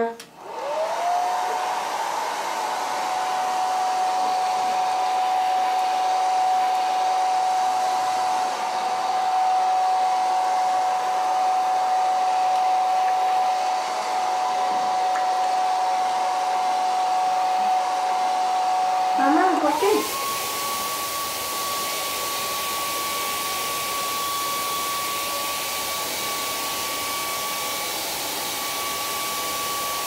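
Handheld hair dryer switched on, its motor whine climbing within a second to a steady pitch over a loud rushing hiss. About two-thirds of the way through, the whine jumps to a higher pitch and the hiss turns brighter. It cuts off at the end.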